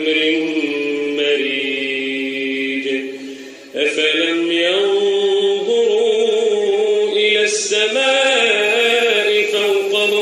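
A man reciting the Quran in slow, melodic tajweed chant, holding long drawn-out notes. The voice breaks off briefly for breath just before four seconds in, then resumes with notes that slide up and down.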